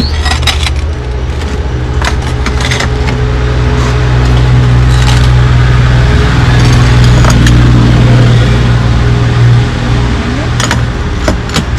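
Thick glass slabs clinking and scraping against each other as they are lifted and moved from a stack, with a handful of sharp clinks scattered through. Underneath runs a loud, steady low hum.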